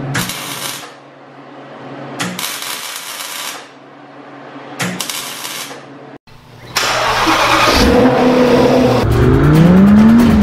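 Arc welding on a steel car chassis rail: three crackling bursts of a second or so, with a steady electrical hum between them. After a brief cut to silence, a car engine runs loud from about two-thirds of the way in, its pitch climbing as it revs up near the end.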